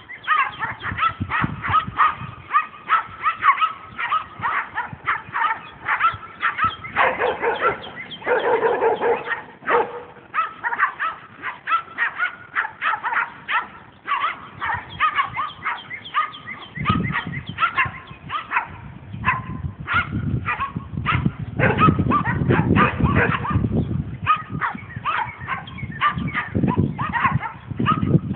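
Small dogs barking and yipping rapidly and almost without pause, high-pitched and several barks a second, with a lower-pitched bark or howl mixed in about a quarter of the way through. A little past halfway, a low rumbling noise joins and stays under the yapping.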